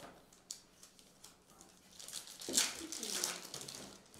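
Topps Chrome trading cards being handled and slid against one another in the hand: a few light clicks, then a louder rubbing swish about two and a half seconds in.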